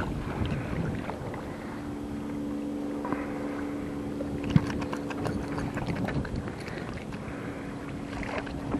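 A boat motor humming steadily over wind and water noise. About halfway through there is a sharp click, then a quick run of clicks and rattles as a hooked fish is swung out of the water.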